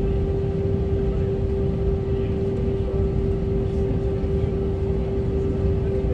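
Cabin noise of an Airbus A320-232 with IAE V2500 engines taxiing at idle: a steady low engine rumble and rushing air, with one constant hum held throughout.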